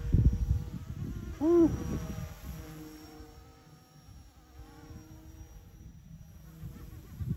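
Radio-controlled helicopter flying high overhead: its motor and rotor make a thin, buzzing whine of steady tones that drift slightly in pitch. It grows fainter over the first few seconds as the helicopter moves away.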